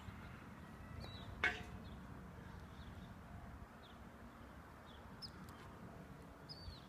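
Faint outdoor background with scattered short bird chirps and one sharp click about a second and a half in.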